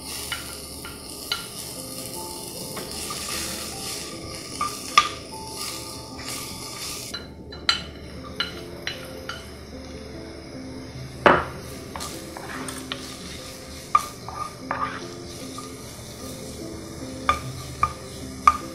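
Onion slices sizzling in a frying pan, with scattered knocks and clicks of utensils against the pan and a wooden spoon stirring. The loudest knock comes about 11 seconds in, over soft background music.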